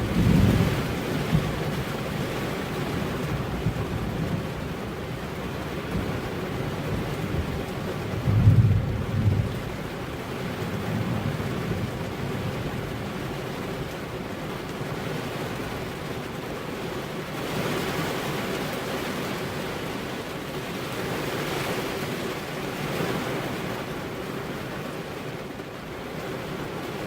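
Steady rainfall with low rumbles of thunder, one right at the start and a louder one about eight seconds in.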